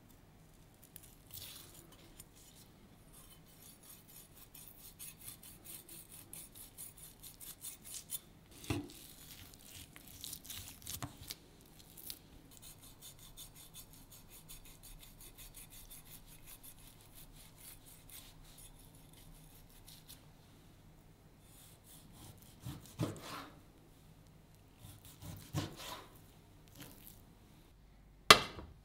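Chef's knife scraping and slicing along raw beef tenderloin on a plastic cutting board, trimming off the silver skin in short rhythmic strokes, with a few soft knocks of the blade on the board. Near the end a single sharp clank as a metal frying pan is set down on the hob.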